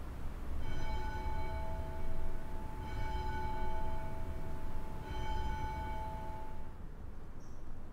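A bell struck three times, about two seconds apart, each stroke ringing on for a second or two, over a low steady rumble.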